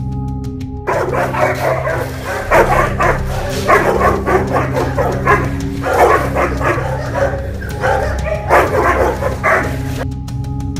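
A dog-aggressive male Rottweiler and a black Labrador cross barking at each other through the wire mesh of a kennel run: a rapid, overlapping volley of barks that starts about a second in and stops shortly before the end. Background music plays under the barking.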